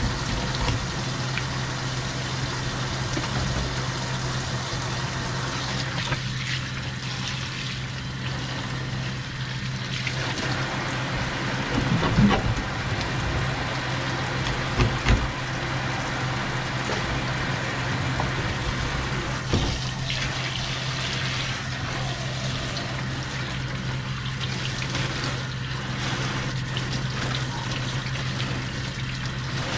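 Kitchen tap running steadily onto a wooden cutting board and fish, over a steady low hum. A few knocks of a knife on the board come near the middle, at about twelve, fifteen and twenty seconds in, as a rockfish is cut up.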